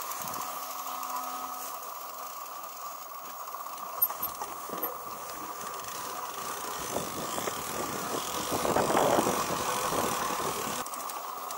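Mountain bike rolling over a rough grassy trail: the bike's parts rattle and the tyres knock over the ground, with one sharp knock about four seconds in and a rougher, louder stretch around nine seconds in. Wind buffets the microphone throughout.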